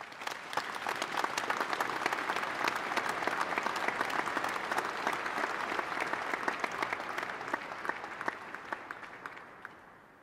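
Audience applauding, swelling over the first couple of seconds and fading away near the end.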